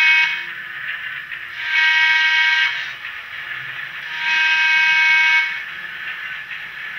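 Sound-decoder horn of a Bachmann Spectrum On30 model trolley played through its small onboard speaker: a blast just ending as it starts, then two longer steady blasts about a second and a half and four seconds in, with a quieter steady running sound in between.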